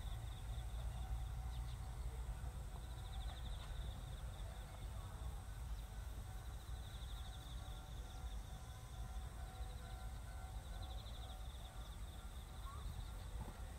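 Faint outdoor ambience: an insect trilling at a high pitch in bouts of one to two seconds that repeat every few seconds, over a steady low rumble.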